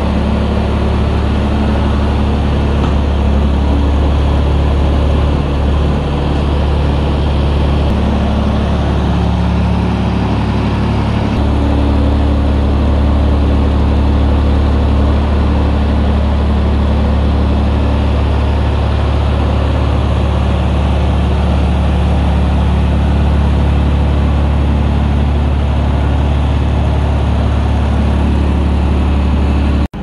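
Avant 760 compact loader's diesel engine running steadily at idle. Its low note shifts slightly a few times.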